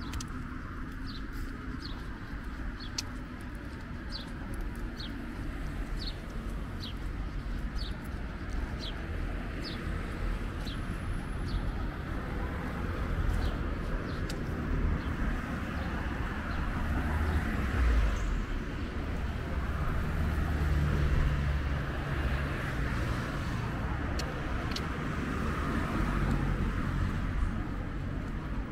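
Street ambience: a steady hum of road traffic, swelling as cars pass around the middle and latter part. In the first ten seconds or so, a bird repeats short, falling chirps about twice a second.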